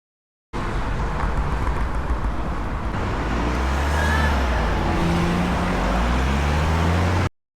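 Road traffic: motor vehicle engines running close by, one rising in pitch as it speeds up from about halfway in. The sound cuts in after half a second of dead silence and cuts off suddenly near the end.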